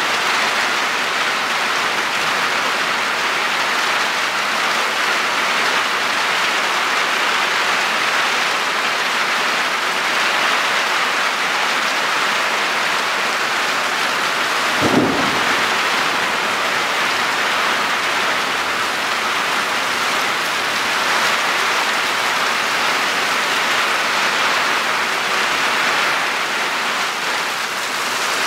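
Heavy downpour: a steady hiss of rain on roofs, trees and ground, with water streaming off a roof edge. A short low thump about halfway through.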